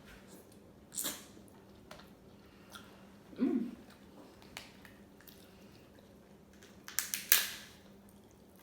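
Wet squishing and smacking of buttery potato. There is a sharp smack about a second in, a short low hum in the middle, and a louder cluster of wet smacks near the end, with faint clicks in between.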